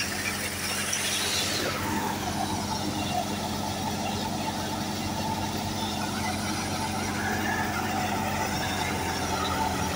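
Massey Ferguson 375 tractor's diesel engine running steadily under load, driving a belt-driven wheat thresher whose drum and blower add a steady whirring rush. A brief louder rush of noise comes in the first two seconds.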